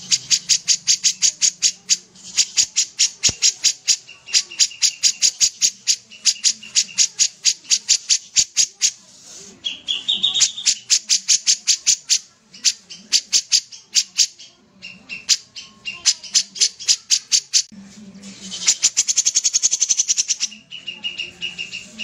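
Caged kapas tembak bulbul singing a rapid-fire run of short, sharp notes at about five a second, with a few brief held whistles between the runs. A faster trill comes near the end.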